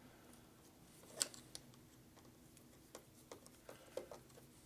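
Scattered small metallic clicks of a screwdriver working on a motorcycle carburetor's screws and fittings, the sharpest about a second in and a few lighter ones in the second half, over a quiet room.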